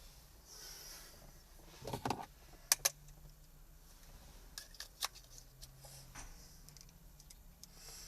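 Small parts and tools being handled while an accelerator pedal assembly is put back together: a few knocks, then two sharp clicks in quick succession, then lighter clicks about five seconds in.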